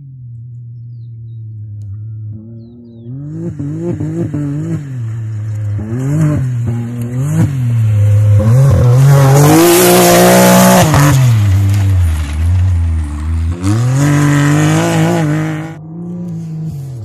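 Side-by-side (SSV) rally buggy at full race pace on a dirt stage, its engine repeatedly climbing and dipping in pitch as it accelerates and lifts. It builds from distant to loudest in the middle as it passes close by, then drops off suddenly about a second before the end.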